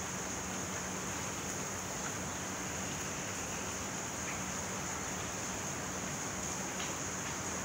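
Steady rain falling, an even hiss that never lets up, with a few faint drop ticks.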